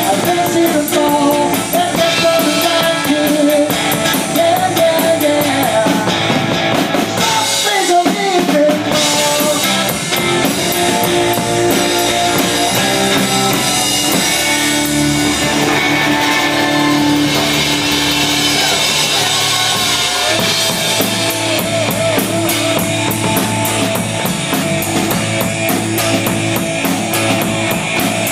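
Live band playing rock: electric guitar lines over electric bass and a drum kit.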